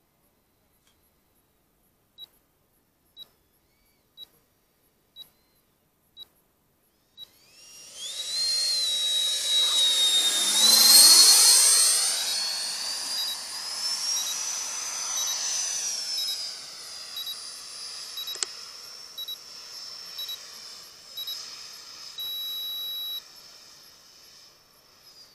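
EL-39 radio-controlled model jet making a low pass: a high-pitched whine swells in, loudest with a sweeping hollow sound as it goes by about eleven seconds in, then fades away. Short electronic beeps sound about once a second before it arrives.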